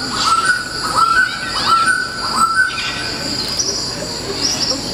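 Sound effects from a projection show played over loudspeakers: bird-like whistled calls, a short note repeated about four times with quick drops in pitch, over a steady high cricket-like chirring.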